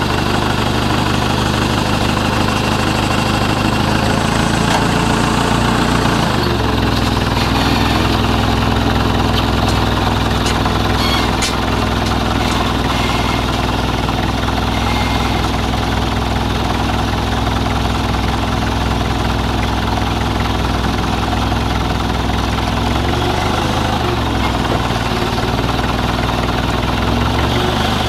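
An engine idling steadily, its speed shifting about a quarter of the way in and again near the end, with a few faint clicks near the middle.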